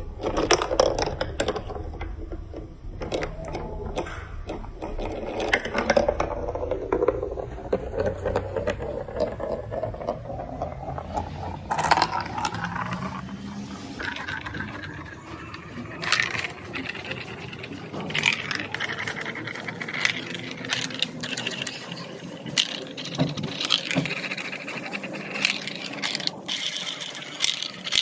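Marbles rolling and clattering through a plastic building-block marble run: a continuous rolling rumble with many sharp clicks as they drop and knock against the pieces.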